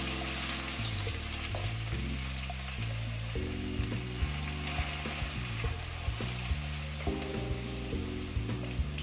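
Grated pumpkin sizzling as it fries in ghee in a steel pan, a steady frying hiss while it is cooked until its raw smell goes. A wooden spatula stirs and turns it, with small taps against the pan from about four seconds in. Soft background music plays underneath.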